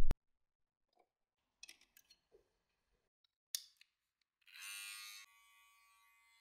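Barber's scissors snipping faintly a few times, with a sharper click about three and a half seconds in. A low hum cuts off right at the start, and a short hiss comes about five seconds in.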